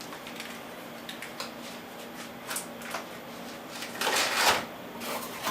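Computer-part boxes and packaging being handled: scattered light clicks and rustles, with a louder rustle about four seconds in, over a faint steady hum.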